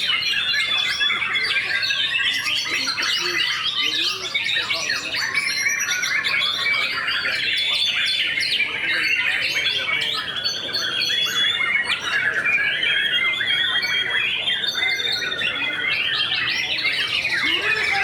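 Many caged white-rumped shamas (murai batu) singing at once at a songbird contest. Their loud, dense, overlapping whistles, trills and chirps run on without a break.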